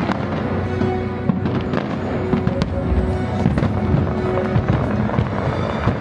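Fireworks bursting in a rapid, irregular string of sharp bangs over steady music.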